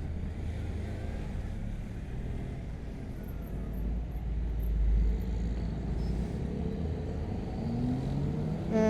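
Riding noise from a Honda CB150R motorcycle in traffic: its single-cylinder engine running under a steady low rumble of road and wind, which swells about halfway through. Near the end the engine pitch rises as it revs up.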